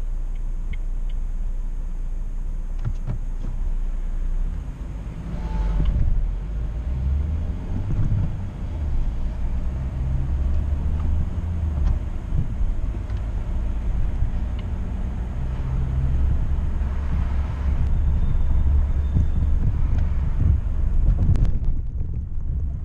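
2011 Honda Civic with a 1.4-litre petrol engine driving: a steady low engine and road rumble inside the cabin, with the engine note shifting pitch a few times.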